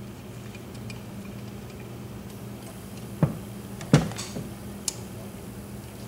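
Small metal clicks and taps from a tubular cam lock and its service jig being handled and fitted together, with two sharper knocks about three and four seconds in and a lighter click about a second later.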